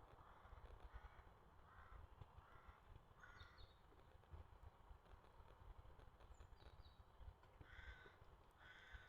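Faint bird calls: short repeated calls about a second apart in two bouts, with a few thin higher chirps, over a low rumble.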